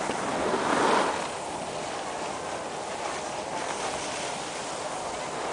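Steady rushing hiss of skis sliding over packed snow, mixed with wind on the microphone, swelling louder for a moment about a second in.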